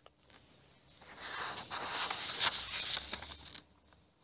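Close rustling and scraping right at the microphone, starting about a second in and stopping sharply after about two and a half seconds.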